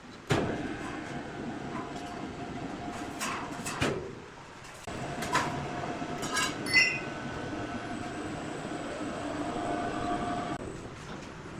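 Electric overhead crane hoisting a heavy sawn wooden slab: a steady motor drone with a faint whine, with several metallic clanks from the chains and load. It pauses briefly about four seconds in and cuts off shortly before the end.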